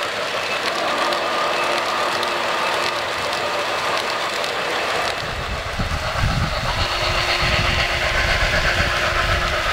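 O-scale three-rail model passenger train running along the track, the steady rolling of its metal wheels on the rails. About five seconds in a deeper low rumble joins it.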